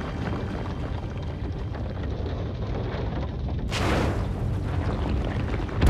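Cartoon underwater sound effects: a steady low rumble, with a sudden rushing whoosh just under four seconds in as a dolphin swims past, fading over about half a second.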